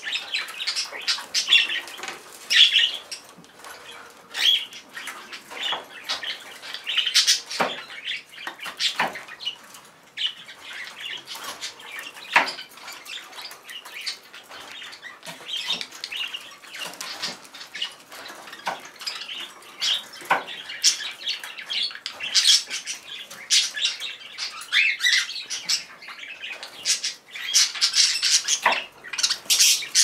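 A group of budgerigars, including large English-type budgies, chattering, chirping and squawking without pause, with scattered sharp clicks and taps among the calls.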